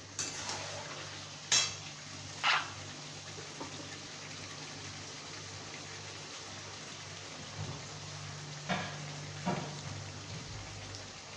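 Chicken pieces sizzling steadily as they fry in oil and masala in a metal kadai. A metal spatula stirs and knocks twice against the pan in the first few seconds, and two fainter clinks come near the end.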